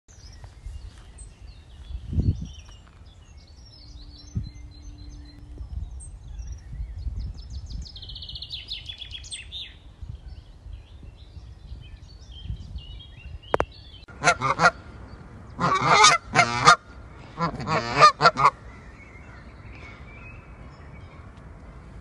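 Canada goose honking: a run of loud calls in quick succession over about four seconds in the second half. Earlier, small birds chirp faintly, with one short high trill.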